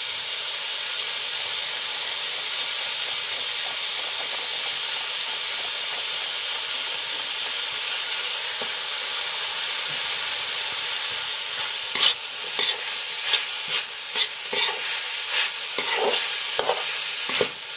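Chopped vegetables with green peas sizzling in oil in a steel kadai, a steady hiss. From about twelve seconds in, a metal spatula scrapes against the pan in quick repeated strokes as the mix is stirred.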